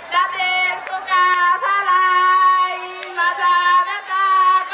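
A teenage girl singing into a handheld microphone, amplified, in long held notes with short breaks between phrases.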